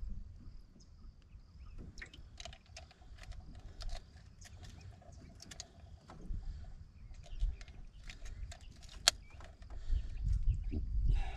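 Scattered clicks and taps of a largemouth bass being handled and hung on a hand-held digital fish scale, with one sharp click about nine seconds in, over a steady low rumble.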